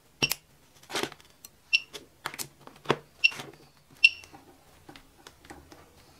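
A battery spot welder firing its copper probes on a nickel strip against a cylindrical battery cell: about eight sharp weld snaps in the first four seconds, several with the welder module's short high beep. After that there are only faint ticks.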